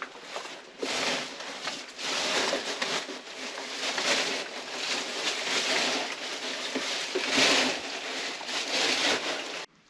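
Uneven rustling and scraping of clothing and boots against rock as a person crawls through a narrow passage, stopping abruptly near the end.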